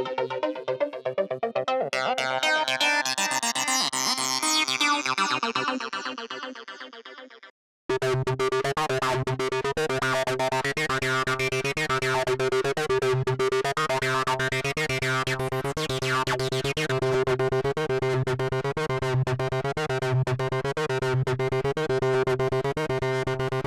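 Arturia Acid V, a TB-303-style software bass synthesizer, playing factory presets. A sequenced line whose tone sweeps and shifts fades out about seven seconds in. After a short gap a new preset starts a fast repeating note pattern over a steady low bass note.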